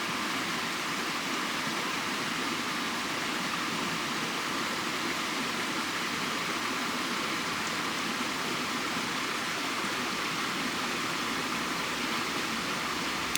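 A steady rushing noise that holds even throughout, with no distinct clicks or tones.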